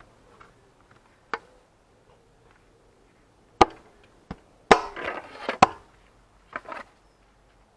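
Plastic side panel of a Zontes Tiger 125 motorcycle being pressed back onto the frame by hand: a scatter of sharp clicks, knocks and short rattles, the loudest past the middle, as the panel is knocked and snapped into place.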